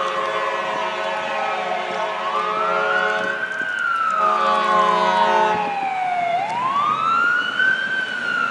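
Fire engine siren wailing in slow rising and falling sweeps. A steady air-horn blast sounds over it twice: one ends about a second and a half in, and another runs from about four to five and a half seconds.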